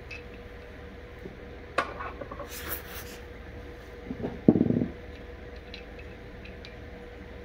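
Off-camera workshop handling noises over a steady faint hum: a sharp click about two seconds in, a short hiss just after it, and a heavier thump near the middle, which is the loudest sound.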